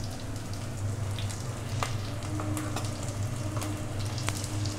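Sliced red onions dropped into hot oil in a stainless steel pot, sizzling steadily, with a couple of faint clicks. A steady low hum runs underneath.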